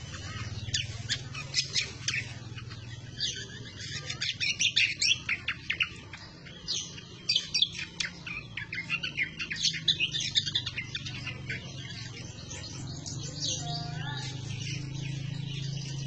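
Greater green leafbird (cucak kombo) singing vigorously, a rapid chattering run of sharp, high notes in bursts that thin out over the last few seconds, over a steady low hum.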